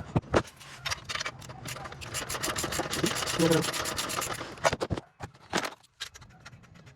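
Ratchet wrench with a long 16 mm socket clicking and rasping as it turns out a steering rack mounting bolt, mixed with sharp metallic clicks of the tools on the bolt.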